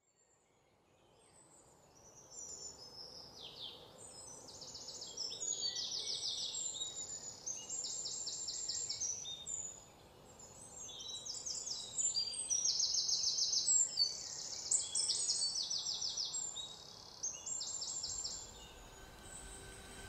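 Birds chirping and trilling in repeated bursts of rapid, high-pitched notes, over a faint steady background hiss. The birdsong fades in from silence over the first couple of seconds, and a low steady hum comes in near the end.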